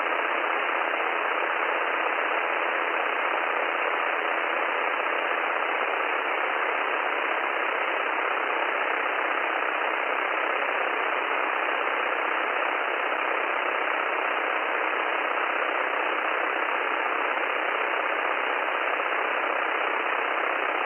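Steady hiss of light-aircraft cockpit and engine noise picked up through the headset intercom, sounding thin like a radio, with no change throughout.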